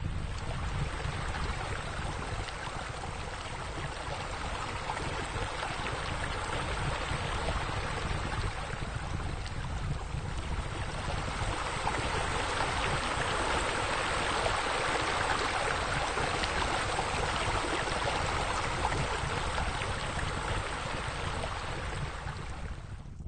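Water running and splashing steadily from a spa's water wall and spillway, swelling louder in the middle and fading away near the end.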